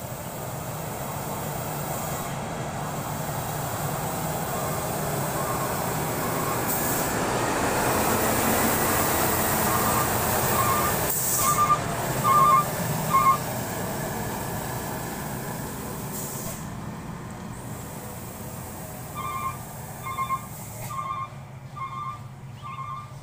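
Loaded Fuso logging truck's diesel engine growing louder as it comes down the rough gravel road and passes close, then fading as it moves away. A run of about five short beeps sounds as it passes, and another near the end.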